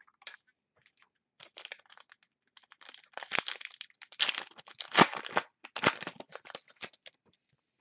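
Foil wrapper of a football trading-card pack crinkling and tearing as it is ripped open and the cards slid out. The sound is a run of irregular crackles, loudest in the middle.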